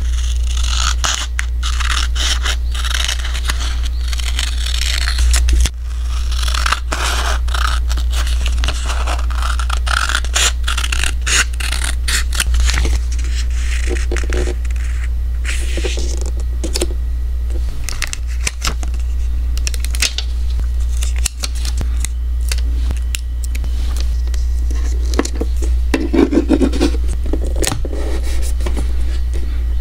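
Scissors cutting and scraping along paper, with many small snips and clicks. Later, sparser sounds of paper sheets being handled, rubbed and set down. A steady low hum runs underneath.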